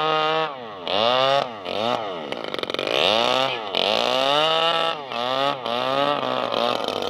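Small two-stroke brush-cutter engine powering an RC boat, running at high revs. Its pitch drops sharply and climbs back up about six times.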